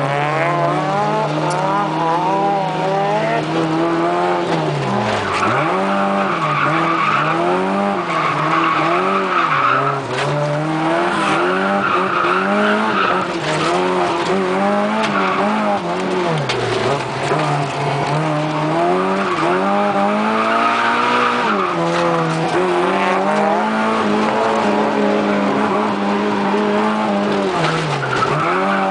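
Toyota AE86 Corolla drifting, heard from inside the cabin: the engine revs up and down again and again, and the tyres squeal in several long stretches.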